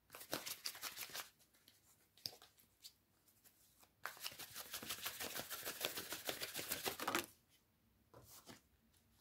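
A deck of tarot cards being shuffled by hand: a short run of rapid card clicks at the start, a few single clicks, then a longer run of about three seconds from about four seconds in.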